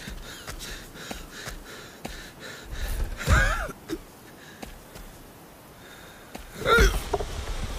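An animated sheep's effortful vocal sounds: two loud, short strained grunts or gasps about three and a half seconds apart, with faint rustling between.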